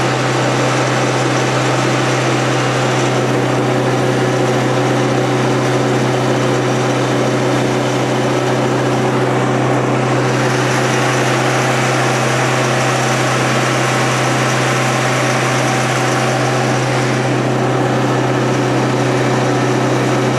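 Fire truck engine running steadily, driving the pump that feeds a hose line: a loud, even hum that does not change.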